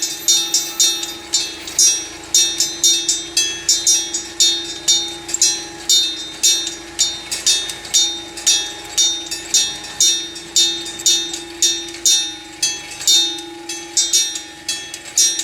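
Electric bell of a Japanese railway level crossing ringing: its hammer strikes the bell over and over, a few strokes a second, over a sustained ringing tone. It is the crossing's warning that a train is approaching.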